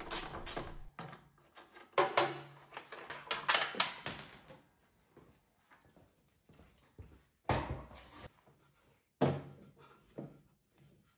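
Hand-tool and handling noise on a lawn tractor's plastic body: wrenches clicking and clinking on the seat bolts, then a few separate knocks, the two loudest sharp clunks in the second half as the seat comes off.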